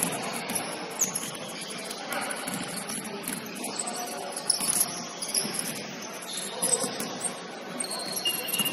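Basketball shoes squeaking on a hardwood gym floor over a steady din of players warming up, with a few sharper thuds of balls bouncing.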